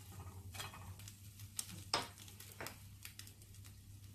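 An egg frying quietly in a nonstick pan, with a silicone spatula tapping and scraping against the pan several times; the sharpest tap comes about two seconds in. A faint low hum runs underneath.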